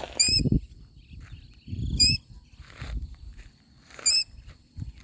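A cockatiel calling three times, short sharp chirps about two seconds apart, while a faint steady high insect hum runs underneath and low rumbling noise comes and goes between the calls.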